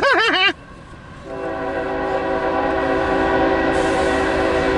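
Air horn of the locomotive leading a CSX empty coal train, sounding one long steady multi-note chord that begins about a second in and is still held at the end, a warning for the grade crossing.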